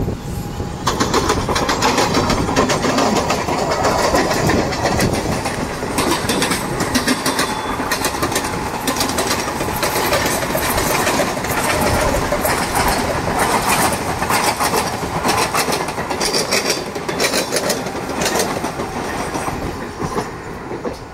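Mumbai suburban local trains: the electric multiple unit carrying the recording runs at speed, its wheels clattering rapidly over rail joints, while another local passes on the next track. The noise drops away near the end.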